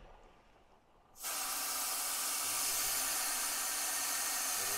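Air hissing steadily out of an off-road tyre through its valve as the tyre is aired down for rough ground, starting suddenly about a second in.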